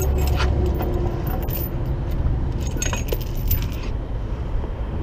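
Metal jingling and clinking in quick, irregular bursts that stop a little before the end, over a steady low engine rumble.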